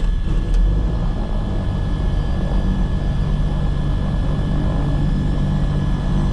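The right engine of a Cessna 340, a turbocharged Continental six-cylinder, running steadily at low power just after start, with a thin steady high whine alongside.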